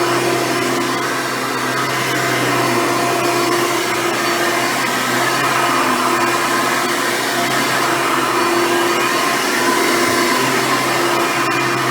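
Hoover Runabout vacuum cleaner running steadily, its hum shifting a little in pitch now and then.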